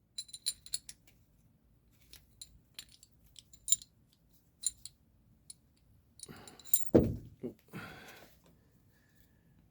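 Metal seatbelt hardware clinking and clicking lightly, a dozen or so small knocks as the belt's anchor and bolt are handled and fitted. About seven seconds in comes a louder thump with rustling.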